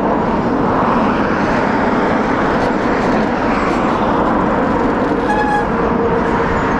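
A car being driven, with steady engine and road noise.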